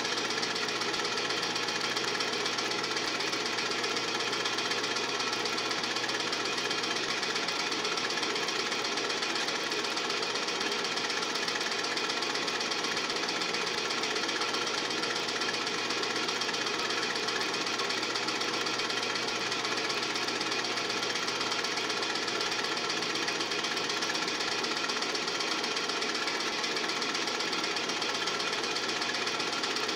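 Film projector running, a steady, fast mechanical clatter of the film transport.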